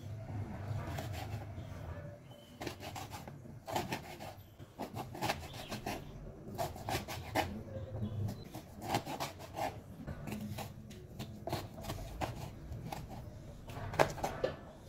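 Cleaver chopping pickled mustard greens on a wooden cutting board: irregular knocks of the blade through the leaves onto the board, starting a few seconds in, with the loudest strike near the end.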